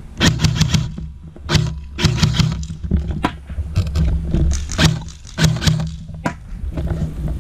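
Airsoft rifle firing in quick strings of sharp snaps, several a second, with short breaks between the strings.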